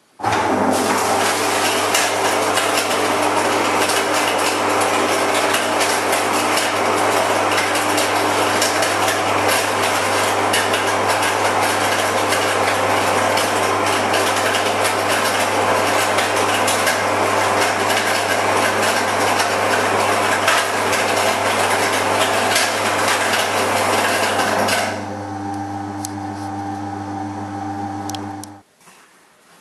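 Motor-driven MonsterMill roller mill, turned by a 180 RPM electric motor, switched on and crushing barley malt: a dense crackle of grain over a steady motor hum. About 25 seconds in the crackling stops as the hopper runs empty, the motor hums on alone for a few seconds, then cuts off.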